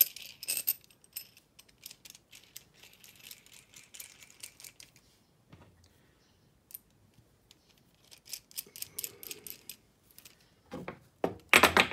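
Light metallic clinks and rattles of a homemade shock spring compressor (threaded rod with nuts and bracket) being handled, with a few louder metal knocks near the end.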